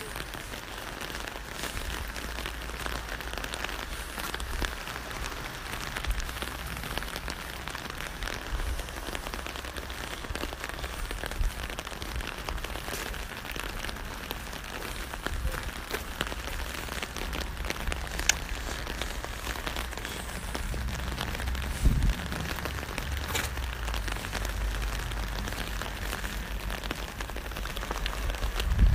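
Steady rain falling, with many separate drops ticking close to the microphone over an even hiss. A low rumble runs underneath, with a louder thump about three-quarters of the way through and another at the very end.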